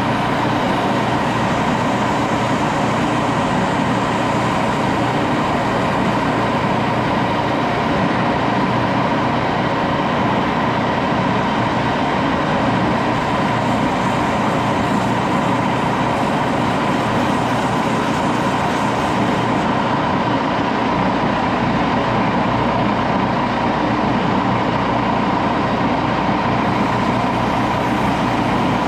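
Metal lathe running steadily while a handle is machined: an even mechanical drone with a constant whine from the motor and gearing.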